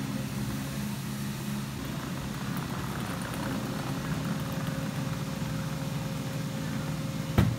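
Small caster wheels of a bee-striped Wheely Bug ride-on toy rolling across a concrete warehouse floor with a low rumbling rattle, over a steady low hum. A single sharp knock comes near the end.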